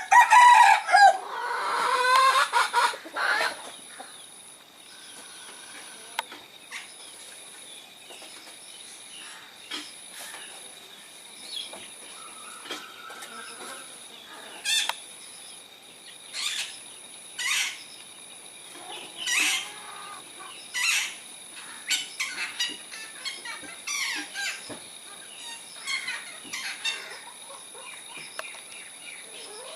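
Birds calling loudly: a dense run of calls in the first few seconds, then short single calls every second or two. A thin, high tone pulses steadily behind them.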